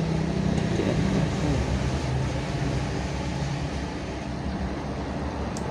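Steady low rumbling hum of background noise, with one faint small click near the end.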